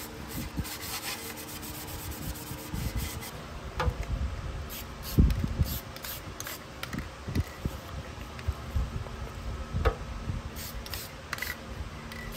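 Hands rubbing and scratching over a chrome-plated plastic headlight bucket, in irregular strokes: an abrasive scuff pad scrubbing it, then masking paper and tape being smoothed down on it, with a few light knocks.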